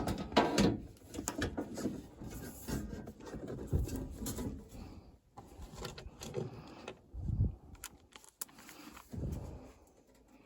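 Irregular knocks, clicks and rustling of hands working on a furnace and its parts, with a low thump about seven seconds in.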